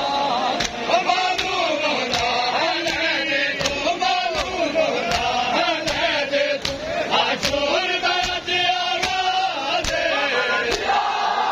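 Men's voices chanting a noha (Shia lament) together, over a steady beat of open-handed chest slaps (matam) landing about two to three times a second.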